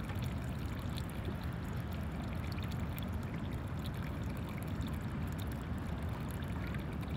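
Small-water ambience: water lapping and trickling close by, over an uneven low rumble of wind on the microphone, with no engine or voice.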